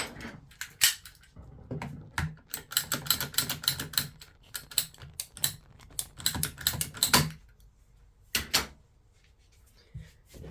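Quick runs of light clicks and taps from a piece of PVC pipe being handled and worked against a workbench, then a couple of separate knocks.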